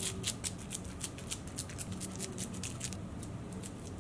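Crumbly nut loaf mixture being scraped from a metal bowl with a wooden spoon and pressed into a round metal cake pan by hand: a run of quick, irregular clicks and crackles, thinning out near the end.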